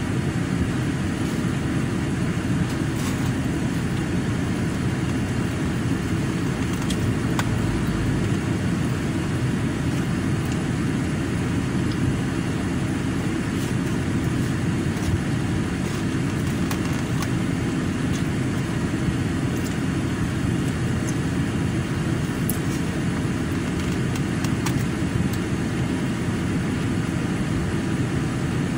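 Steady low rumble and hiss of a car, heard from inside its cabin, with a few faint clicks.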